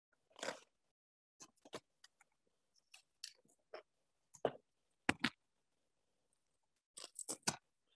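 An Össur Miami LSO lumbar orthosis belt and its back pad being handled and fastened with hook-and-loop: a scatter of brief fabric rasps, scrapes and clicks at irregular intervals, the strongest about half a second in and twice just after five seconds.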